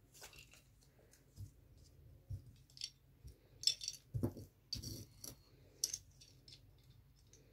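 Small plastic building blocks clicking and clattering against each other as they are picked up and handled, in a run of faint irregular clicks, the loudest about halfway through.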